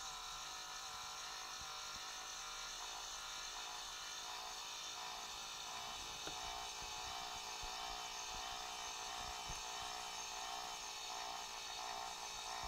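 Steady whir of a small electric motor, the motorized display turntable turning, with a slight regular waver in pitch.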